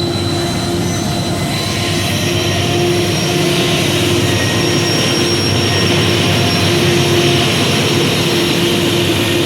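A train passing, a loud steady rumble and rush of noise with thin high whining tones over it, growing a little louder after about a second and a half.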